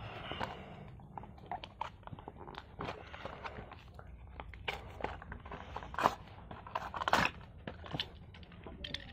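Toy packaging being opened by hand: irregular crackles, clicks and crunches of the packaging, a few louder snaps among softer rustling.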